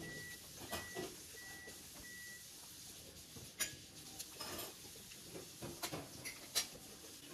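Quiet eating sounds at a table: scattered small clicks and taps of hands, shell pieces and plate while food is picked apart and eaten. Four short high beeps sound within the first two and a half seconds.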